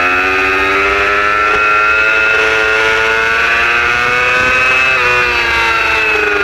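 Racing superbike engine at high revs, heard from a camera mounted on the bike; the pitch climbs over the first two seconds, holds, then falls from about five seconds in.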